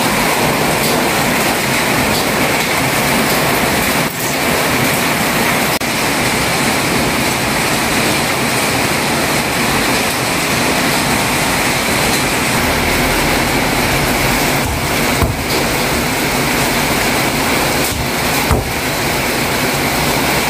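Steady rain falling, a loud even hiss with no let-up.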